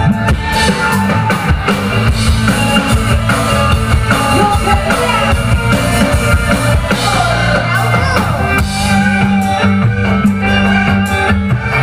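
Loud music with drums, guitar and a heavy bass line played through a large sound system during a sound check, with a voice singing at times.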